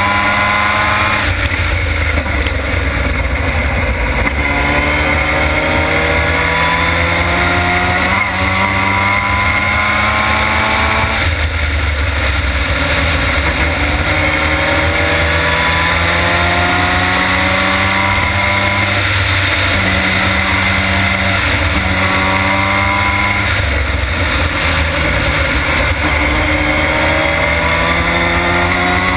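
Formula Mazda race car's rotary engine at full throttle, heard onboard: its pitch climbs steadily under acceleration and drops sharply at each gear change, several times over, over a constant low rumble.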